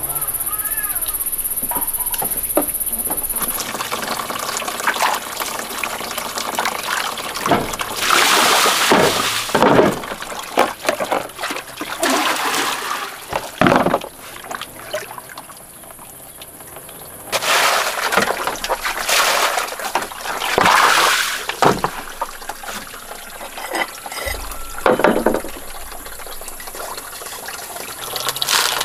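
Water splashing and trickling in several spells separated by quieter stretches, the longest spell a little past halfway.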